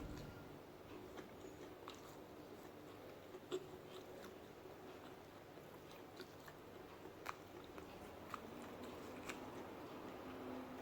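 Faint close-up chewing and biting of food, with scattered small crunchy clicks, the loudest about three and a half seconds in and again about seven seconds in.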